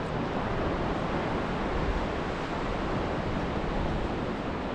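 Steady wash of surf breaking on a sandy beach, with wind rumbling on the microphone.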